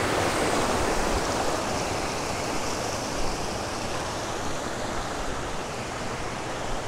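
Steady rush of flowing water, a continuous even noise without distinct splashes.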